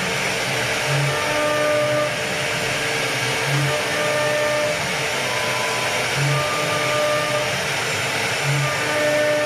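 CNC router spindle running at speed while its bit cuts a carved pattern into a wooden door panel: a steady, even whirring hiss.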